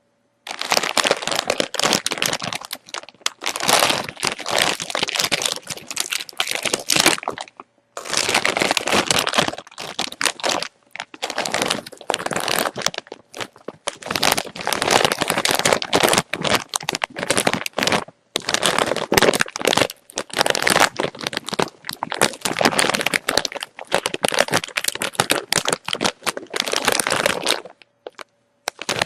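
Potato chips being chewed up close: dense, crackly crunching in runs of a few seconds, broken by brief pauses.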